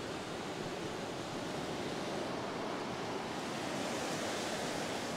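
Surf washing in over the sand at the water's edge: a steady wash of small broken waves, swelling slightly midway.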